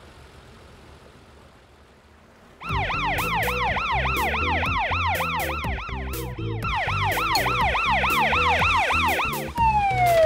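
Cartoon police car siren, a fast rising-and-falling wail that starts nearly three seconds in, over background music with a beat. Near the end a long falling tone takes over.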